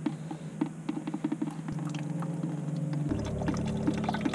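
Engine coolant pouring out of the loosened drain into a bucket, with a few light clicks in the first part. The stream gets louder and changes pitch about three seconds in.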